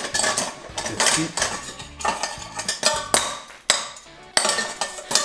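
Metal hand-mixer attachments knocking and clinking against a stainless steel pot, a sharp clatter about once a second.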